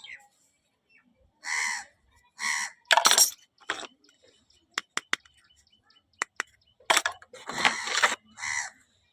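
Packaging being handled during an unboxing: a series of short scratchy rustling bursts with a few sharp clicks, the longest burst near the end.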